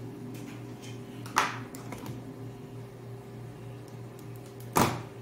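Two sharp clicks, about three and a half seconds apart, from pliers and wire being handled on a tabletop, over a steady low hum.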